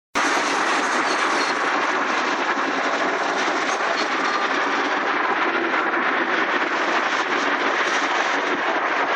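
Steady hum of distant city traffic, an even wash of noise with no single vehicle standing out.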